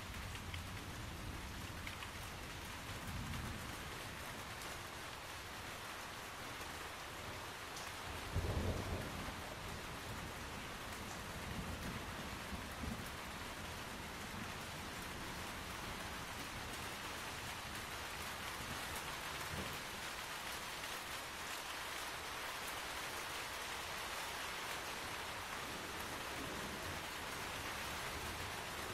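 Steady rain falling beneath a tree canopy. A few short low thuds or rumbles come through it, the loudest about eight and a half seconds in.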